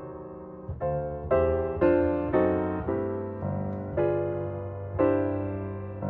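Background music: piano notes and chords struck roughly every half second, each fading after it is struck.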